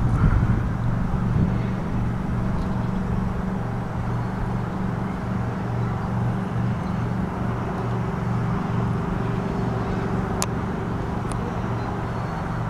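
A steady low engine hum, like a motor running nearby, with one sharp click about ten seconds in.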